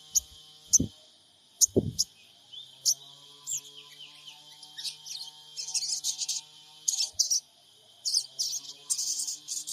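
Sogon trotol bird calling: a string of short, sharp, high chirps that run into quick chattering bursts about halfway through and again near the end, played as a lure to make other sogon birds call. Two low thuds sound in the first two seconds.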